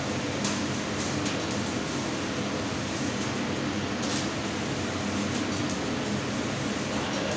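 CNC laser cutting machine at work cutting a pattern into a metal sheet: a steady mechanical hum with hiss, and a few short hissing swells along the way.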